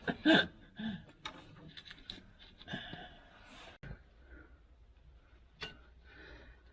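A short burst of voice or laughter, then scattered light clicks and taps as hands work a brake line fitting into place.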